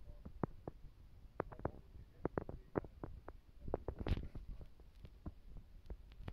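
Handling noise from a handheld camera: irregular soft clicks and taps over a low rumble, with a brief louder rustle about four seconds in.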